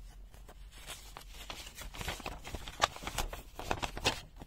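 Paper user manual being unfolded and handled: crisp paper rustling and crackling that builds up, with a few sharper crinkles in the second half.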